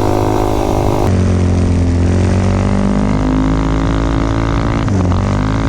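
Tillotson 263cc single-cylinder minibike engine running hard under load, its pitch climbing slowly, then dipping sharply and picking back up about five seconds in. The top end is cutting out, which the rider puts down to a carburettor that needs cleaning out.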